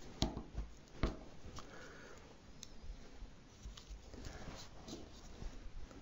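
Faint handling noises of fingers working small brass shower-cartridge parts and rubber O-rings: scattered light clicks and rustles, with the two sharpest clicks near the start and about a second in.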